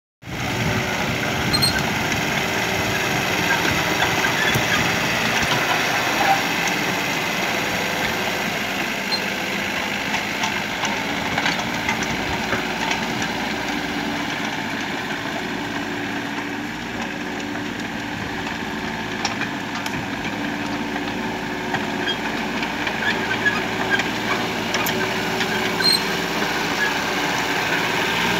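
Kubota KH-027 mini excavator's diesel engine running steadily while it works, spreading and levelling soil with its bucket and blade.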